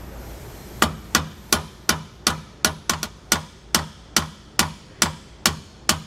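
Hammer tapping a bolt through a leaf spring eye, its spacers and a steel slipper spring box, with rapid even taps about three a second that start about a second in. The bolt is a tight fit and is being driven all the way through.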